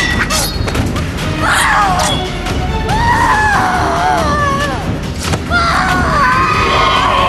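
Dramatic film score over a fight: a steady low rumble with a sharp hit at the start, and high wailing tones that slide and waver over it from about a second and a half in.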